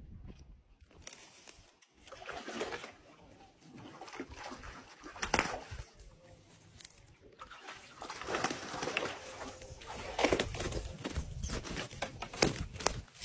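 Water splashing and sloshing in irregular bursts as a hooked fish is scooped out with a landing net, with sharp knocks and rustles as the net is handled.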